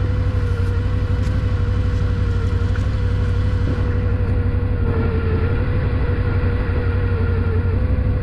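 ATV engine running steadily close by, a constant low drone with a steady tone above it.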